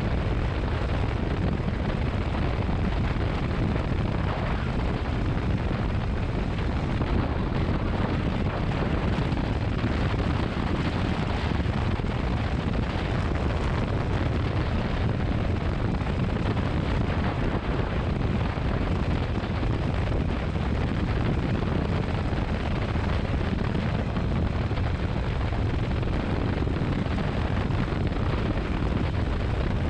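Motorcycle riding at a steady speed: wind rushing over the microphone, with engine and road noise beneath it, steady throughout.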